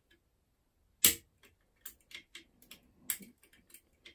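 Small metal clicks and ticks from a curtain pick lifting the levers inside a five-lever mortice lock against a tension arm, with a sharp click about a second in, another near the end, and lighter ones between.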